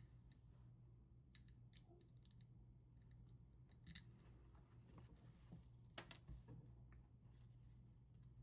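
Faint, scattered clicks of small hex screws being turned in by hand with a hex driver on a RAM cooling block and spreader, over a low steady hum.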